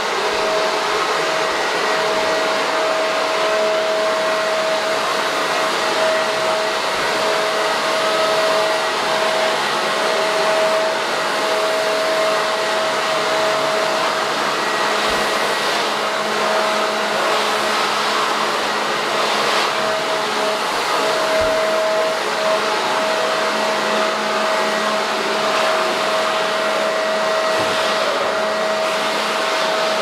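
Corded electric leaf blower running steadily: a rush of air with a steady whine through it, blowing out a ceiling light fixture.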